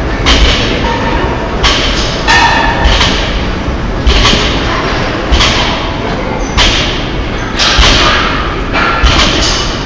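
Loaded barbells with black rubber plates being set down on a rubber gym floor between fast deadlift reps. About ten thuds come at an uneven beat of roughly one a second, because two lifters work out of step.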